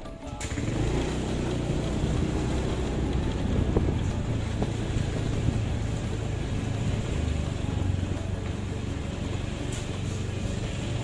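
Motorcycle engine running steadily as it rides along, with wind buffeting the microphone. It starts abruptly about half a second in.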